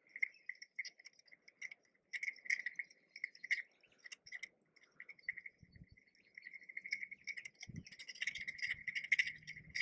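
Insects chirping in a continuous pulsing chorus at a high pitch, with scattered sharp clicks.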